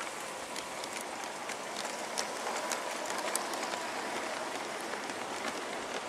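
LGB garden-scale model freight train rolling past on its track: a steady rolling rattle scattered with many small irregular clicks from the wheels and wagons.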